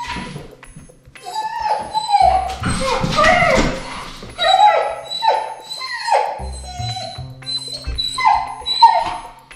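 Golden retriever puppy whining and crying at a closed door, a run of short, falling whines about two a second: distress from separation anxiety at being left behind. Background music plays under it.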